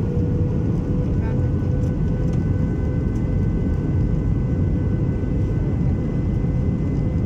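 Steady cabin noise of an Airbus A320 airliner on its landing approach: an even low rumble of the jet engines and rushing air, with faint steady whining tones above it.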